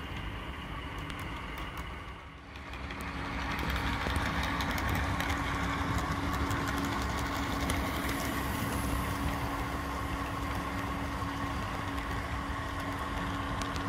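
Model 44 class diesel locomotives running on a model railway: a steady hum, with faint clicks from the track. The sound dips briefly about two seconds in, then runs louder.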